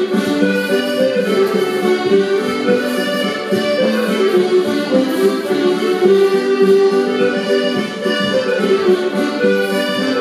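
Scottish country dance music led by accordion, a lively traditional tune with a steady beat.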